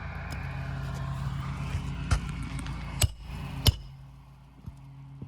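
Brittle old asphalt shingles scraping and rustling as a roof snake is worked under them, with loose granules falling off. Three sharp clicks come between about two and four seconds in, then the scraping stops.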